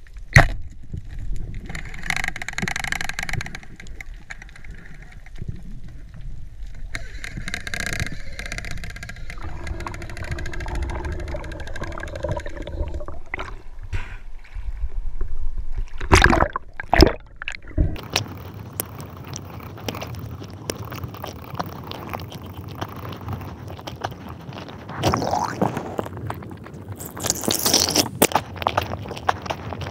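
Water sounds picked up by a diver's camera moving underwater and through the surface: muffled gurgling and sloshing, with a few loud splashes or knocks past the middle.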